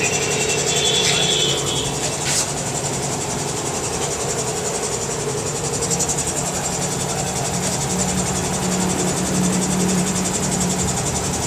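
Steady mechanical hum of running machinery, with a brief high tone about a second in and a single sharp click a little after two seconds.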